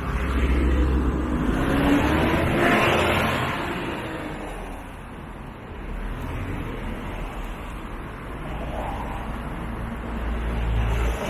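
Road traffic passing: a double-decker bus and cars go by one after another, with a low rumble and tyre noise. The loudest pass comes about two to three seconds in, there is a brief lull around five seconds, and further vehicles pass near the end.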